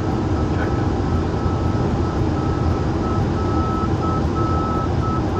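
Steady rush of airflow and engine noise in an Airbus A330neo cockpit on final approach. About two seconds in, a high beep begins repeating in alternating short and long dashes: the ILS middle marker beacon tone, signalling that the aircraft is passing the middle marker close to the runway threshold.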